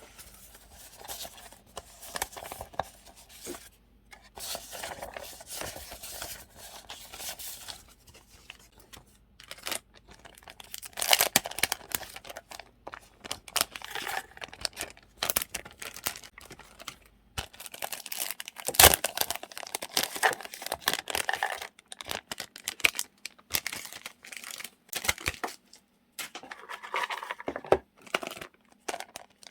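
Paper journaling supplies being handled and sorted close up: paper rustling and crinkling with many small taps and clicks, and one sharp knock about two-thirds of the way through.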